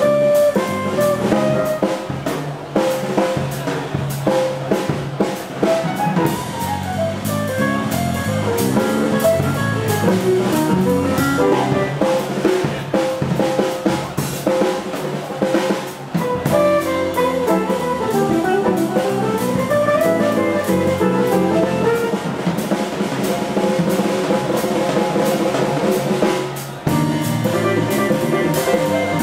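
Live jazz quartet playing an up-tempo tune, with acoustic piano, electric bass and drum kit in the band's sound and an electric guitar on stage.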